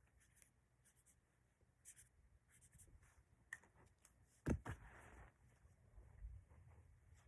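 Faint scratching strokes of a pen or marker writing a name onto a clothing label, with a sharper click about four and a half seconds in.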